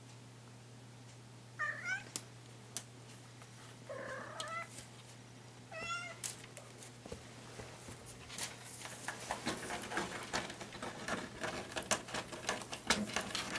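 Ginger-and-white kitten meowing three times, short calls a couple of seconds apart, asking to be let out. From about two-thirds of the way in, the bamboo blind rattles and rustles in quick, uneven clicks as the kitten paws and pushes at it.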